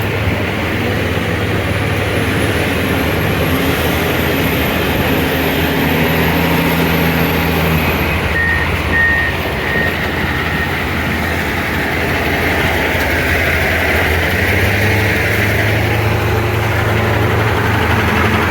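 Heavy truck's diesel engine running steadily, heard from inside the cab, with a few short high beeps about halfway through.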